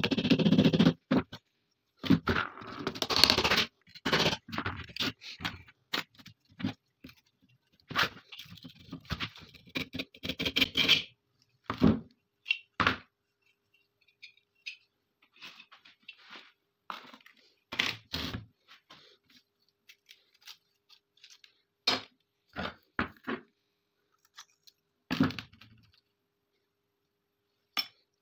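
Rusty steel parts of a 30-bore pistol scraping, clinking and knocking as it is handled and taken apart by hand. Busy scraping and rattling in the first few seconds and again around ten seconds in, then scattered single clicks and knocks.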